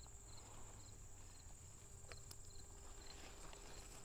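Faint, steady high-pitched trilling of insects, with a few soft clicks and rustles as squash vines and leaves are handled.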